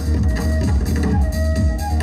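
Electronic dance music with a steady drum beat, deep continuous bass and a melody line on top, played loud over stage loudspeakers.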